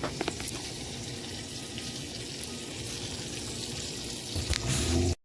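Butter and bacon sizzling in a hot frying pan: a steady hiss with a few small clicks at the start. It grows louder near the end and then cuts off abruptly.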